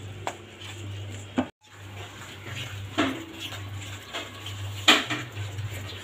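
A hand mixing thick, wet flour-and-cornflour batter in a stainless steel bowl, with sharp knocks against the bowl about three seconds in and again about five seconds in, over a steady low hum.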